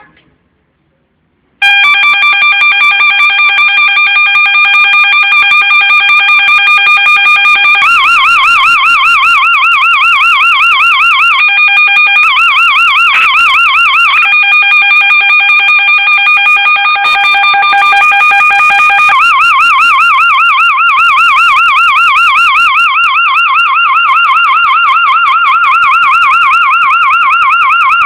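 Homemade PIC-microcontroller electronic police siren. About two seconds in it starts and changes several times between a steady, buzzy held tone and a rapid warble that wobbles up and down several times a second.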